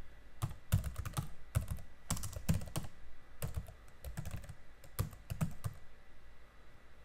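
Typing on a computer keyboard: quick runs of keystroke clicks in irregular bursts, thinning out after about five and a half seconds.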